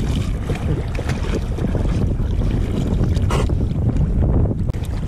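River water sloshing and splashing around a small dog paddling right at the microphone, with heavy wind rumble on the microphone underneath. A sharper splash comes a little past halfway.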